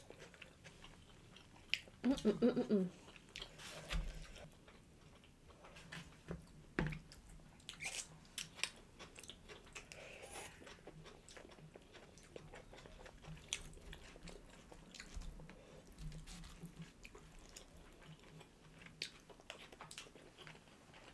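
Close-miked eating sounds of people chewing soft food, with small lip smacks and clicks throughout. There is a brief hummed 'mm' about two seconds in.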